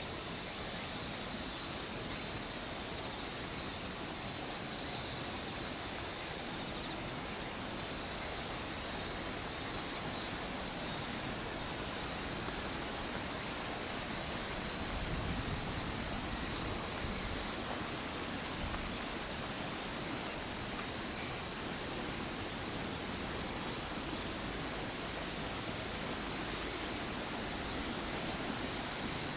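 Steady chorus of insects chirping, high and finely pulsing, over a constant even hiss.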